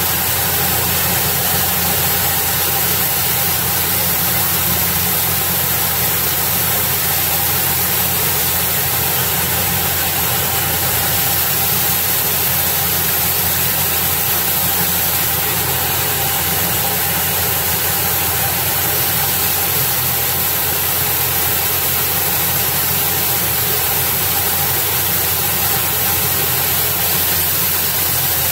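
Coin-operated rice-milling machine running steadily, a constant hum under an even hiss, as brown rice is polished and the white rice pours down its steel chute.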